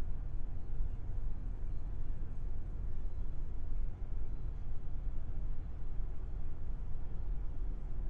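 Harbor ambience: a steady low rumble with no distinct events.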